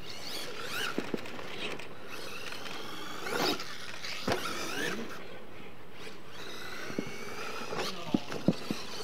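RC scale monster truck's motor whining up and down in pitch as it is driven hard across dirt, with several sharp knocks as it lands jumps, a few of them close together near the end.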